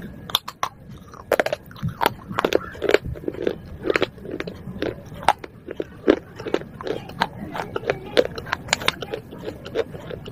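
Person biting and chewing pieces of broken fired-clay pot, a rapid run of sharp dry crunches, about two or three a second.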